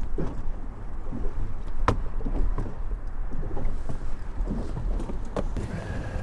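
Wind rumbling on the microphone and water lapping around a small fishing boat, with a couple of sharp knocks, about two seconds in and again near the end.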